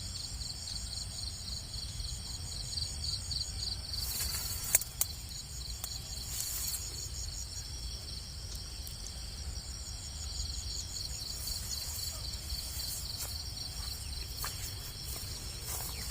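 Crickets or other field insects calling in a steady, evenly pulsing high chorus, over a low rumble. A single sharp click comes a little under five seconds in.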